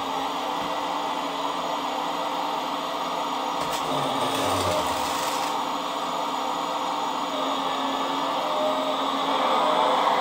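A scale RC Volvo excavator's hydraulic pump whirs steadily while the arm works. About four seconds in comes a short hissing rush with a low rumble as the bucket empties into the hauler's bed.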